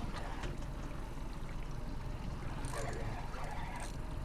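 Water sloshing and trickling against a fishing boat's hull over a steady low hum, typical of the boat's motor idling.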